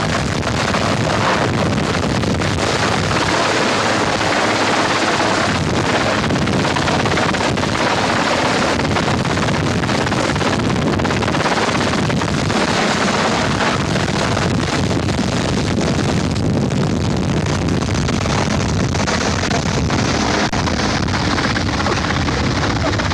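Large helicopter hovering low overhead: steady, unbroken rotor and engine noise.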